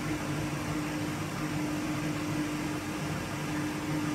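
Beko 5 kg front-loading washing machine running on its spin program as it works up to speed: a steady motor running noise with a constant low tone. With the drum bearings newly replaced, the earlier grinding hum of the worn bearings is gone and only the motor is heard.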